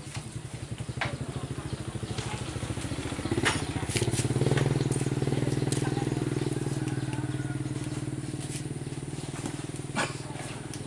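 A small engine running with an even pulsing beat. It grows louder about four seconds in, then slowly fades, with a few sharp clicks along the way.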